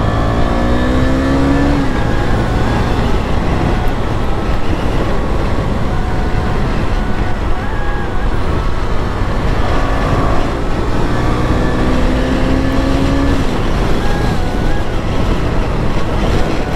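KTM Duke 250's single-cylinder engine running under way, its note rising twice as it pulls through the gears, over a steady rush of riding noise.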